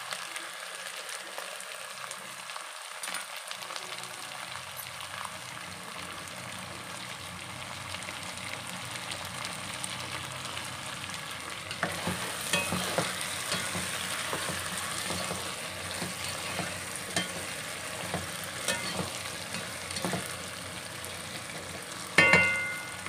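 Diced potatoes, onion and freshly added tomato sizzling steadily in oil in a non-stick pot. About halfway through, a spatula starts stirring and scraping in the pot, and near the end there is one sharp ringing knock of the spatula against the pot.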